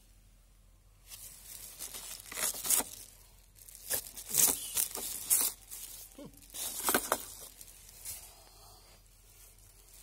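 Irregular rustling and scraping handling noise in uneven bursts. It starts about a second in, is loudest in the middle few seconds, and dies away near the end.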